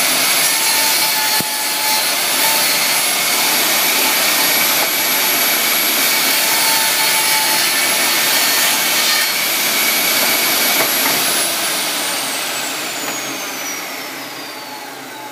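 Table saw ripping a board lengthwise against the fence, its motor whine steady through the cut. About eleven seconds in the saw is switched off and the whine falls as the blade spins down.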